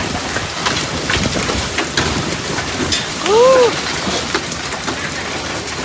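Heavy storm rain beating down on a hard surface, dense and steady, with many sharp separate hits through it. About three and a half seconds in, a brief pitched sound rises and then falls.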